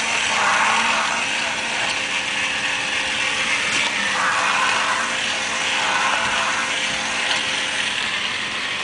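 Motor and plastic gearbox of a battery-powered walking plush toy running steadily, the noise swelling and easing every second or two.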